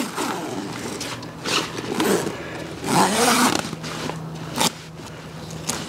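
Long zipper on an inflatable kayak's fabric main-chamber enclosure being unzipped along the hull in a run of rasping pulls, with the fabric rustling as it is opened.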